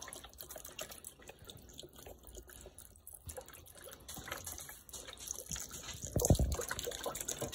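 Liquid pouring from a carton into a slow-cooker crock over raw chicken and vegetables, a faint steady trickle and splash. There is a louder low thump about six seconds in.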